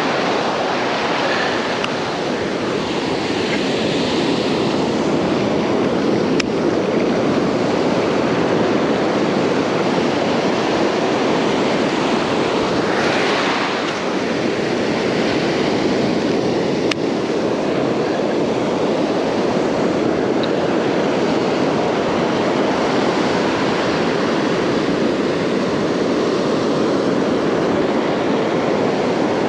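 Ocean surf breaking and washing up the beach: a steady, unbroken rush of waves.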